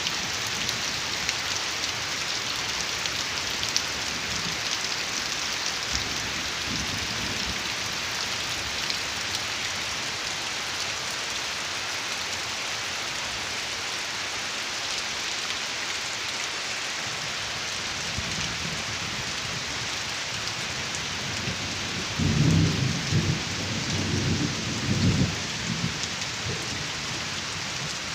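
Heavy rain falling steadily as an even hiss. Bursts of low rumbling come in briefly about six seconds in and more loudly about three-quarters of the way through.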